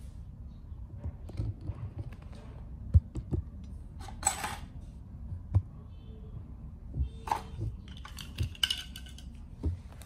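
Scattered small clicks, taps and knocks from a plastic toy RC helicopter being handled on a tile floor, with short scraping rustles about four seconds in and again near the end.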